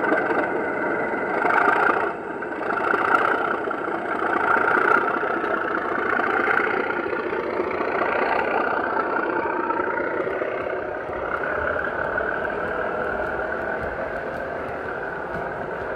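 Loksound V4 sound decoder in an O gauge Heljan Class 37 model playing a Class 37 diesel engine sound through its onboard speakers as the loco moves off pulling a rake of hopper wagons, with the wagons rolling over the track. The sound eases slowly over the second half as the train draws away.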